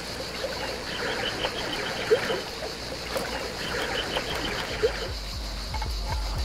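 Water trickling, with short high chirps scattered through it. A low rumble comes in near the end.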